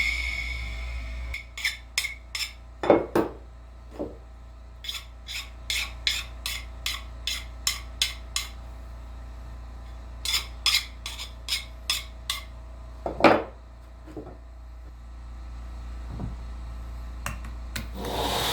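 Light metallic clicks and clinks of metal tools and steel being handled on a workbench, in two runs of evenly spaced ticks about two or three a second, with a few heavier clanks, over a low steady shop hum.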